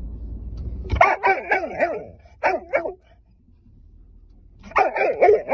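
Dog barking and yipping in quick bursts inside a car: three runs of short calls, the first about a second in, over a low car rumble that stops as the barking starts.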